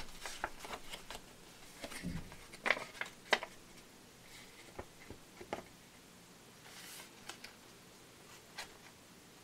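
Paper being folded and creased by hand: crackles and rustles of the sheet, busiest in the first few seconds, then sparse light clicks and a soft rustle.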